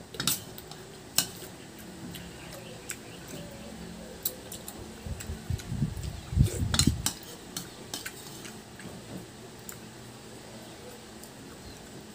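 Metal spoon clinking and scraping against a ceramic soup bowl, in irregular sharp clicks. About halfway through, a spoonful of milk soup is taken with louder eating sounds.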